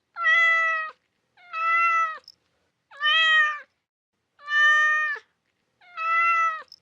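A cat meowing five times in a steady, evenly spaced series, each meow about a second and a half apart.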